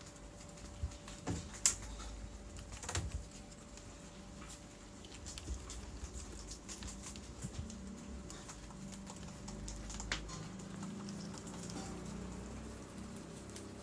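Guinea pig nibbling and rustling dry corn husk: a steady run of small crackles and clicks, with a few louder sharp snaps.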